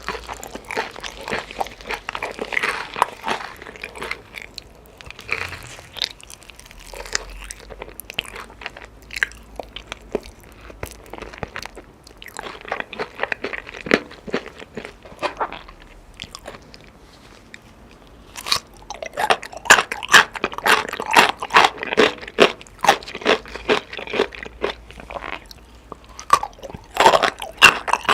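Close-up sounds of a person biting and chewing chicken: a dense, irregular run of sharp crunching clicks. The crunching grows louder and denser about two-thirds of the way in.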